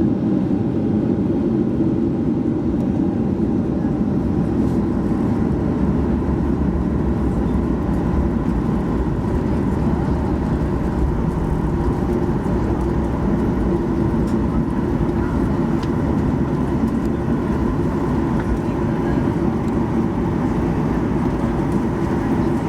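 Cabin noise inside a Boeing 737-800 airliner, just after landing: a steady low rumble of its CFM56-7B engines and the rolling airframe, with no sudden change.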